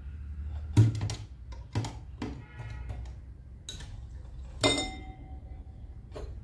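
Sewing machine stitching a fabric strip in short runs, a low hum with a ticking needle mechanism, broken by a few sharp knocks, the loudest about a second in and again near five seconds.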